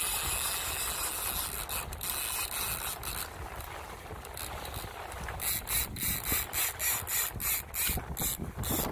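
Fishing reel ratcheting as a fish is fought on the line. From about halfway it turns into a regular clicking pulse, about two to three a second.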